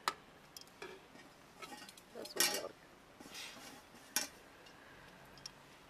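Stainless steel plates clinking and scraping as food is arranged on them by hand: a few sharp clinks, with a longer scrape about two and a half seconds in.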